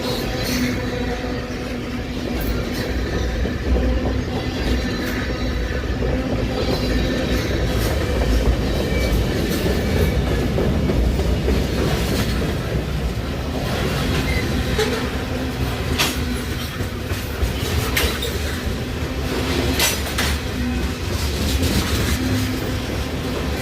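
Freight train rolling steadily past at close range: a continuous low rumble of wheels on rail, with sharp clicks as wheels cross rail joints and a faint steady tone from the wheels.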